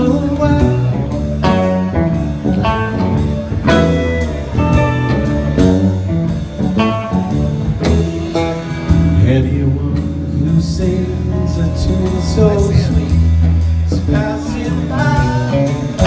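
Live band playing through a PA: electric guitar, bass, drums and keyboards, with a singer's voice, recorded from the audience.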